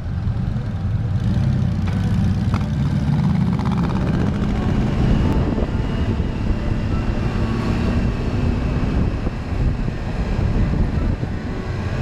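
Motorcycle engine running at road speed, with wind and road noise on the microphone.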